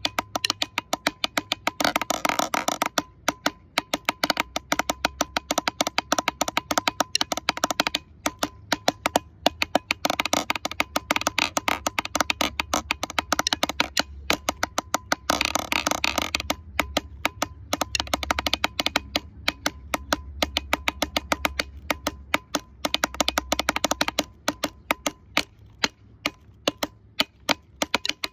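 Drumsticks played fast on the lid of a plastic water cooler used as a practice drum: snare-style rudiments of quick, sharp strokes, with two passages, about two seconds in and again around fifteen seconds in, where the strokes run together into rolls.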